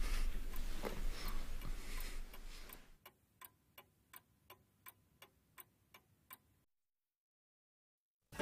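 A clock ticking steadily, about three ticks a second, over a faint room hiss that fades out about three seconds in. The ticking stops shortly before the end, leaving dead silence.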